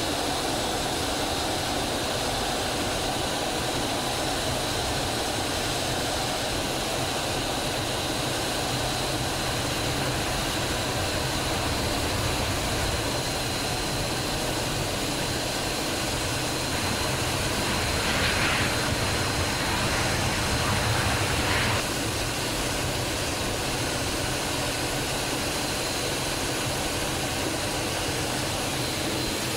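Aero L-39 Albatros jet trainer's single Ivchenko AI-25TL turbofan engine running steadily, heard inside the cockpit: a steady rush with a thin high whine. It swells slightly for a few seconds past the middle.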